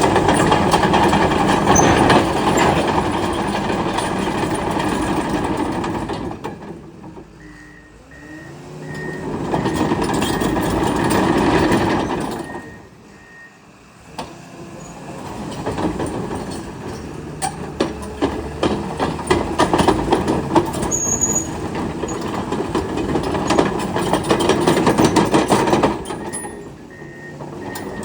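Komatsu D61PXi-24 crawler bulldozer running and moving, its diesel engine noise rising and falling with frequent clanks, and dropping away twice. A reversing alarm beeps evenly a quarter of the way in and again near the end.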